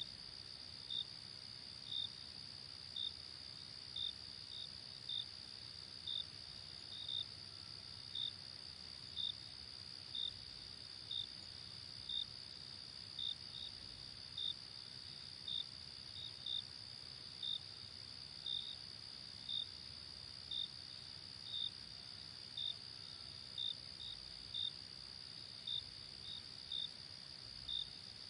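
Insects chirping: a steady high-pitched trill with a louder short chirp repeating about once a second, now and then doubled.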